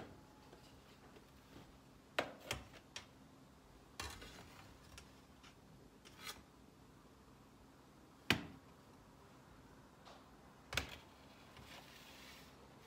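Chef's knife cutting through the baked dough crust of a perde pilavı. A few scattered sharp clicks and taps sound as the blade meets the metal serving tray, the loudest about eight seconds in.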